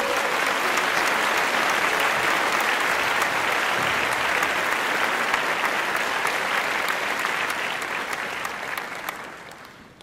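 Applause: many hands clapping steadily, fading out in the last second.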